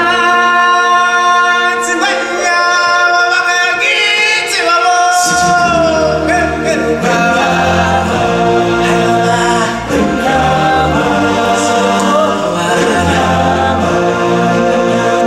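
A choir of voices singing a song with musical accompaniment during a live stage show. A deep bass part comes in about five seconds in.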